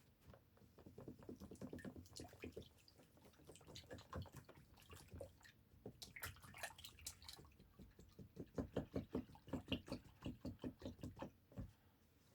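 Faint wet stirring and knocking of watered-down drywall compound in a container worked with a spatula. Quick, regular strokes of about five a second come in past the middle.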